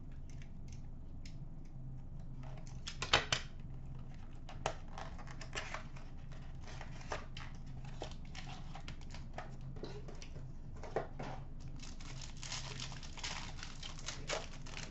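A cardboard hobby box being opened and a foil trading-card pack torn and crinkled open by hand. Irregular rustles and sharp snaps, the loudest about three seconds in and steady crinkling near the end, over a faint steady hum.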